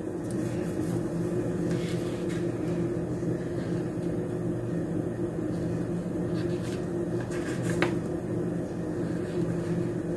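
A steady low hum with a few held tones, with a few faint clicks scattered through it.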